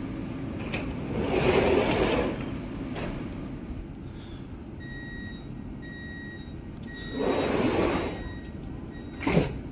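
Metro train's door-closing warning: a run of short repeated electronic beeps starting about halfway in, with the sliding doors shutting in a rush of noise about seven seconds in and a sharp knock near the end. A burst of hissing noise comes about a second in.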